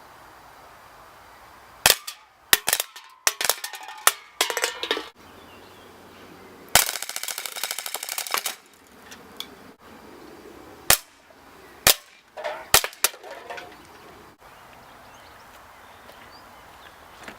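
Umarex M93R Raffica airsoft pistol firing: single shots and short quick groups, with one continuous full-auto string of about a second and a half in the middle.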